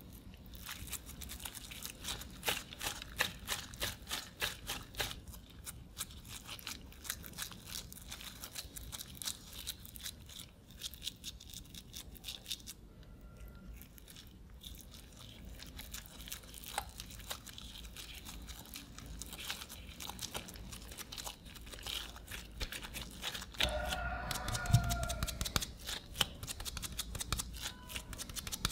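Gloved hands squeezing, kneading and patting a sticky minced-chicken mixture, giving a dense run of wet squishing and crackling. A short squeak with a soft thump comes near the end.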